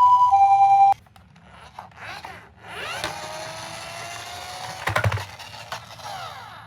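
Two-tone hi-lo ambulance siren, alternating between two pitches, cuts off suddenly about a second in. Then a toy ambulance minicar's small wheels rattle and whir as it rolls down a plastic slope. The whir rises slowly in pitch, and a few clicks sound about five seconds in.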